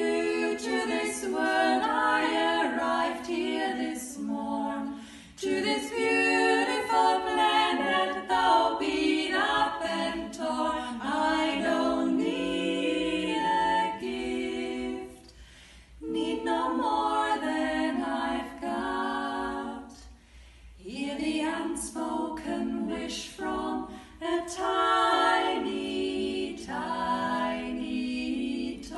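Women's vocal group singing a cappella in close harmony in a church, in sung phrases with short breaks between them.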